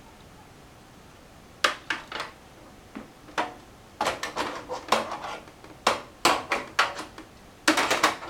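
Irregular sharp clicks, taps and clatters of plastic and metal computer parts being handled and fitted into a desktop case, coming thicker in the second half.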